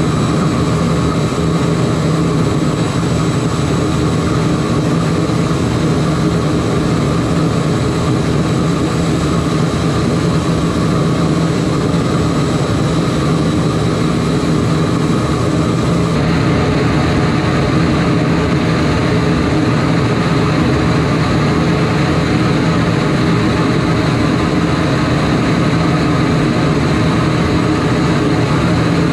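Homemade diesel-fired combustor burner firing steadily: a loud, even rushing noise with a faint high whine. About halfway through, the noise turns brighter and hissier.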